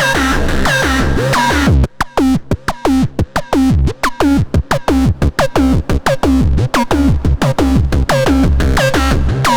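Electronic music from an Arturia AstroLab stage keyboard preset: rhythmic synth notes that bend downward in pitch, over a drum-machine beat and pulsing bass. About two seconds in, the bass drops out and only short choppy notes remain; the full beat returns about four seconds in.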